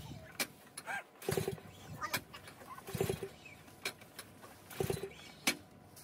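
A snowblower engine being cranked three times, about every one and a half to two seconds, without catching, so it won't start. Sharp clicks fall between the attempts.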